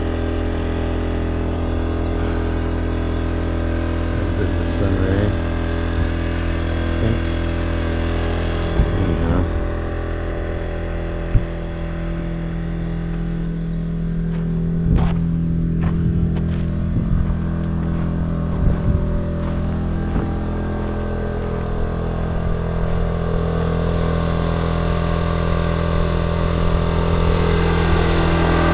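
Small portable generator's engine running at a steady speed, a constant even hum.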